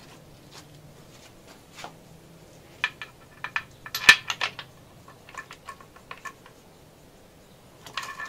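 Scattered metallic clinks and clicks of bolts and hand tools being handled while fitting bolts on an engine. The loudest is a sharp clink about four seconds in, with another cluster of clicks near the end.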